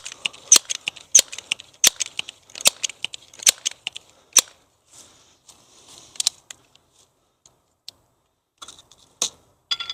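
Pellet pistol being handled and readied for the next shot: a run of sharp clicks, about one every three-quarters of a second for the first four seconds, then a soft rustle and a few scattered clicks near the end.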